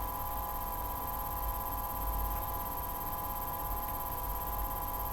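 Steady electrical hum: a few fixed tones with a low rumble underneath, unchanging throughout.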